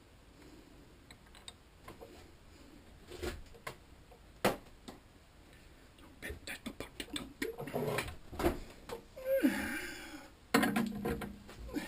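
Metal parts and hand tools being handled on a workbench: scattered clicks and knocks that turn into a quick flurry midway. A brief hiss follows, then a short low hum near the end.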